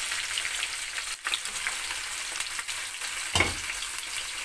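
Diced onion, bell pepper and tomato sizzling in hot olive oil in a frying pan: a steady hiss with small crackles, and one thump about three and a half seconds in.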